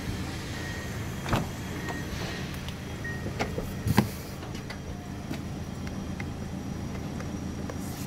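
Steady low hum of a car, with a few sharp clicks and knocks from its doors and interior trim. The loudest knock comes about four seconds in.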